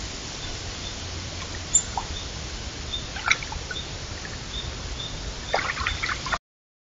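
White-tailed deer wading in a shallow, leaf-covered pond: a few soft splashes and steps in the water, most of them close together near the end, over a steady hiss from the trail camera's microphone. A faint high chirp repeats about twice a second, and the sound cuts off abruptly near the end.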